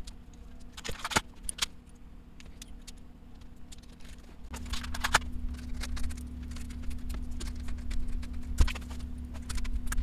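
Scattered clicks, knocks and light clatter of plastic and metal parts as the Compaq Portable's keyboard and case are fitted back together. A steady low hum joins in about halfway through.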